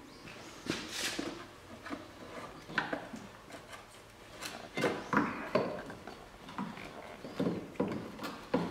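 Engine parts being shifted by hand: irregular clunks, knocks and scrapes as the alternator and power steering pump are moved forward, growing louder about halfway through.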